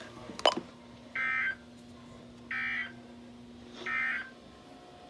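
Emergency Alert System SAME header: three short bursts of high, buzzy digital data tones about 1.4 s apart, the coded header that opens an emergency alert broadcast. A sharp click comes about half a second in, over a faint steady low hum.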